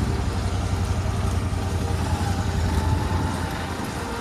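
Motorcycle engine running steadily, with a strong low hum that eases slightly near the end.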